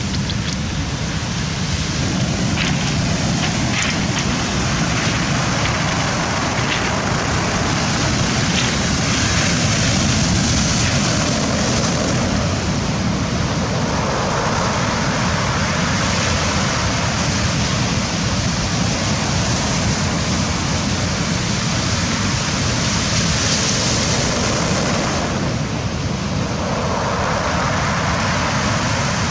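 Rough sea surf breaking and washing, with wind, a steady loud rush that swells and eases a little.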